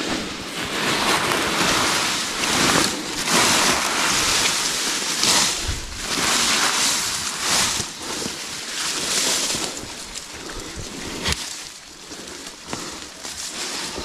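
Rustling of freshly cut elephant grass leaves as young goats pull at them and feed, coming in repeated surges about a second long. It is louder for most of the stretch and eases off near the end.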